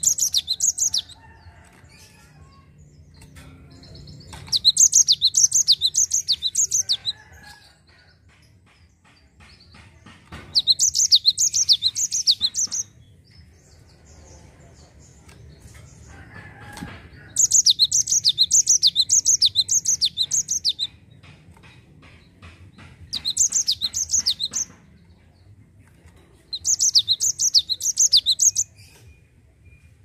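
Cinereous tit (gelatik batu) singing its rolling song in six bouts of rapid repeated high notes, each bout one to three seconds long, with short pauses between.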